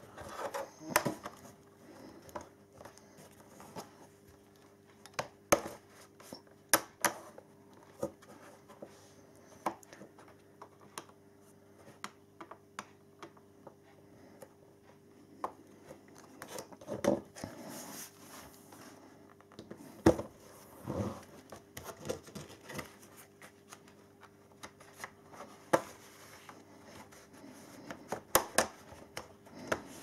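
A plastic card scraping and prying along the seam of a laptop's plastic bottom cover, with scattered sharp clicks as the cover's latches work loose.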